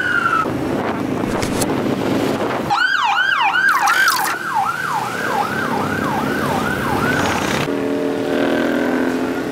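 Electronic siren on its fast yelp setting, its pitch swinging up and down about three times a second for roughly four seconds, after a couple of seconds of road traffic and engine noise. A different, steadier pitched tone comes in near the end.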